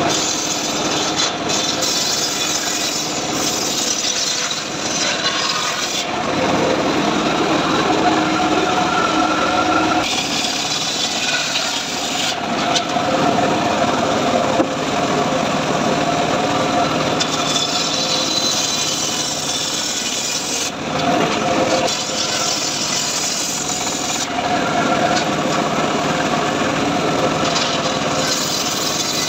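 Homemade circular saw bench ripping a trembesi (rain tree) log lengthwise, the blade cutting through the green wood. The sound shifts every few seconds as the log is fed through and the cut changes.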